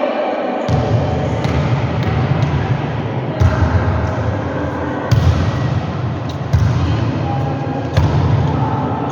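Volleyball being hit and bouncing on a court floor: a sharp thud every second or two, over steady noise with a low rumble.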